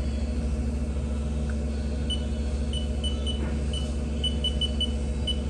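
Haas TM-1P CNC mill spindle running steadily at about 1,000 RPM with a low hum. From about two seconds in there are about ten short, high beeps from the control keypad as keys are pressed.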